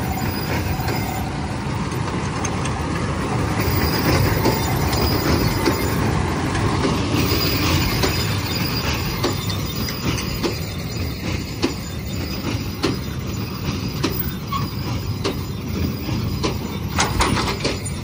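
New Holland tractor pulling a square baler through straw: the engine runs steadily under load and the baler's mechanism clatters. From about halfway through there are repeated, irregularly spaced sharp knocks.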